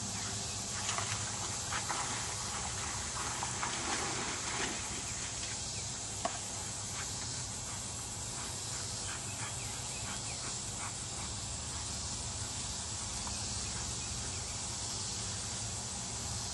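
A dog swimming to the bank of a pond and climbing out through tall grass: faint small splashes and rustles in the first six seconds, over a steady high hiss.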